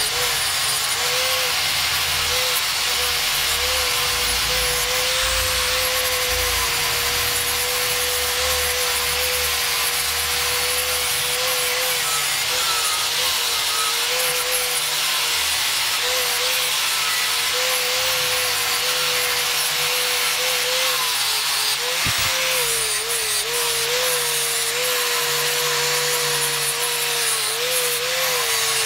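Electric angle grinder with a flap disc running continuously, grinding the rusty steel tang of an old knife. A steady motor whine wavers a little in pitch over the grinding hiss.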